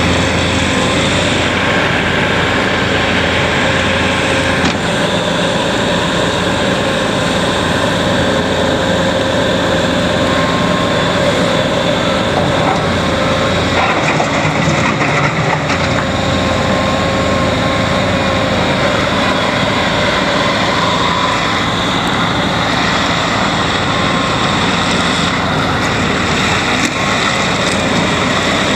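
Bobcat T650 compact track loader running steadily, its diesel engine giving a constant drone with a steady whine over it, the pitch wavering a little at times.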